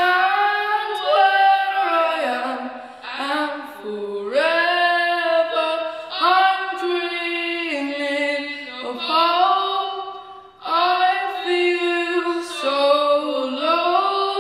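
A boy singing solo in a high, unbroken voice: long held notes that glide between pitches, in phrases with short breaths between them.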